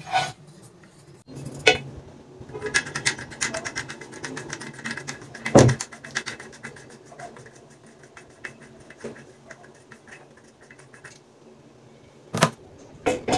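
Handling noise from a stainless steel faucet and its fittings: sharp clicks and knocks of metal parts, with a run of fast rattling ticks early on and a loud knock about halfway through. Two more sharp clicks come near the end.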